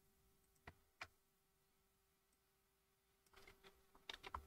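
Near silence over a faint steady hum, broken by two faint single clicks about a second in and a short run of soft computer keystrokes near the end.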